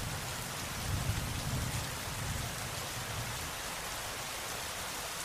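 Steady heavy rain falling on a wet street and pavement, with a low rumble of thunder swelling about a second in.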